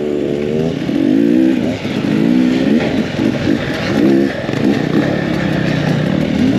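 Two-stroke enduro dirt bike engine being ridden with the throttle worked on and off, its pitch rising and falling every second or so.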